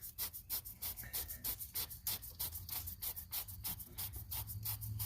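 Oil filter cap being twisted by hand onto its housing: a quick, even run of light scraping clicks, about four a second.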